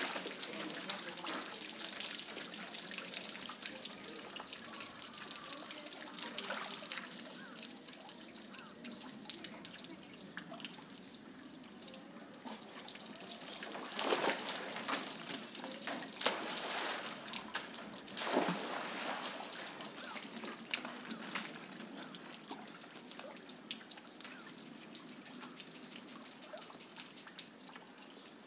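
Rhesus macaques splashing and wading in a shallow pool, with water dripping and sloshing, and a louder splash of a monkey plunging in about 14 seconds in and another near 18 seconds.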